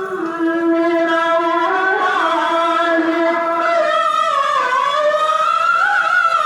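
A man's voice in melodic Qur'an recitation (tilawah), drawing out long held notes that slide slowly up and down in ornamented turns.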